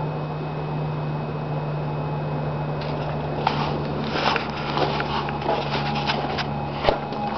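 A VW 8-valve four-cylinder engine idling steadily, with its hood open. Scattered light clicks and knocks join it from about halfway through.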